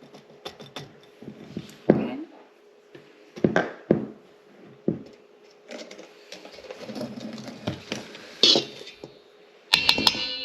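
A utensil stirring dry flour and chopped pumpkin seeds in a mixing bowl: irregular scrapes and knocks against the bowl. Near the end a sharp clatter, followed by a lingering ring.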